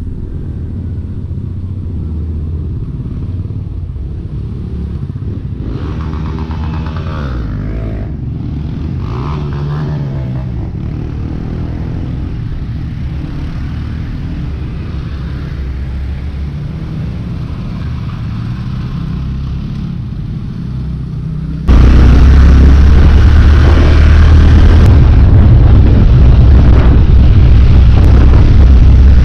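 Motorcycle engines running on the road, a steady rumble with the engine note rising and falling several times. About three-quarters of the way through it switches abruptly to a much louder sound: a bike-mounted camera on a riding motorcycle, with the engine and wind noise on the microphone.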